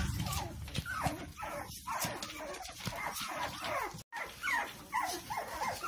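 Young goldendoodle puppies giving short, high whimpers and yips, coming thicker in the last couple of seconds.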